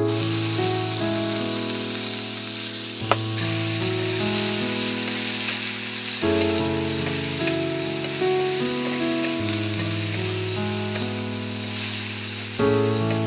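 Sliced onion, garlic and eggplant sizzling in hot oil in a wok as they are stirred with a spatula; the sizzle is loudest in the first few seconds. A sharp click about three seconds in.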